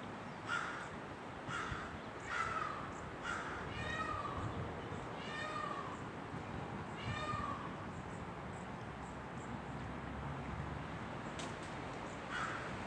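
Peafowl giving a series of short, cat-like calls, some of them falling in pitch, spread over the first seven seconds or so.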